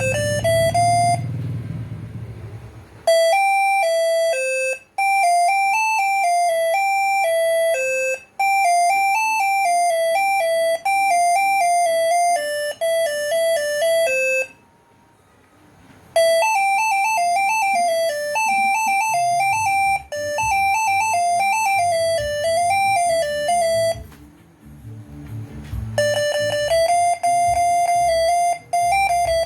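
Basuri six-trumpet telolet horn module playing a quick melody of stepped single notes, in several phrases with short pauses between them.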